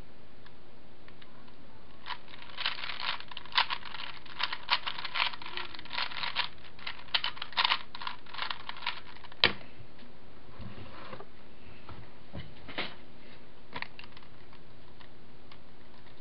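A 3x3 Rubik's cube being turned quickly by hand: fast runs of plastic layer clicks start about two seconds in, with one sharper click at about nine and a half seconds, then slower, sparser turns.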